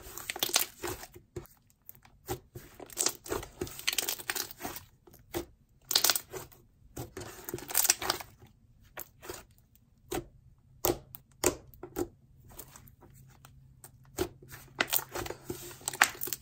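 Thick, activated jelly slime being kneaded, stretched and squeezed by hand, giving irregular sticky crackles, wet pops and sharp clicks as air pockets burst and the slime tears and folds.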